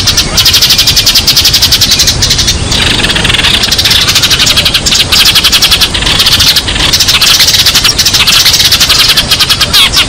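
Sparrows giving flock calls: a loud, unbroken run of rapid chirps, many a second.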